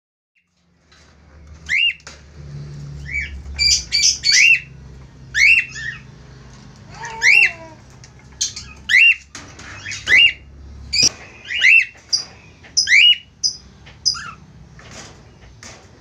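Cockatiels giving loud, sharp calls, about a dozen in all, each a short note that rises and falls in pitch, over a low steady hum.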